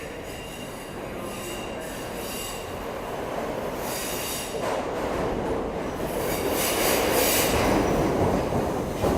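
New York City subway train running through the station with its steel wheels squealing on the rails, the rumble growing steadily louder and the shrill squeal coming in twice in the second half.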